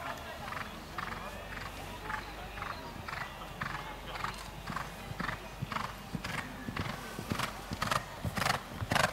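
Hoofbeats of a cantering horse on a sandy track, a steady rhythm of strides growing louder toward the end as the horse draws closer.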